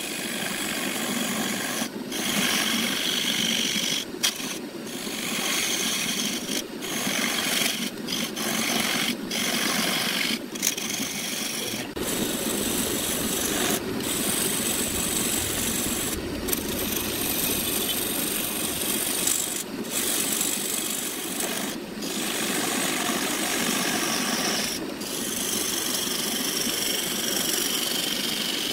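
Turning tool cutting into wood spinning on a lathe: a continuous rasping scrape in repeated passes, broken by brief pauses every second or two as the tool comes off the work.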